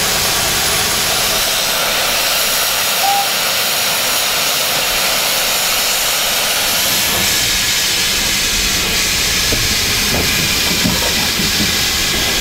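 Steam locomotive hissing steadily as it lets off steam, with a low rumble joining in from about seven seconds in.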